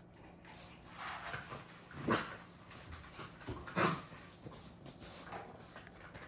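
American bully puppies play-fighting, with two short, loud dog cries about two seconds in and again just before four seconds, amid softer scuffling sounds.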